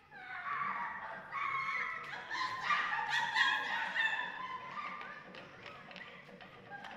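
Several high-pitched voices shrieking and yelping in animal-like cries for the first four seconds or so, then fading into scattered light thumps.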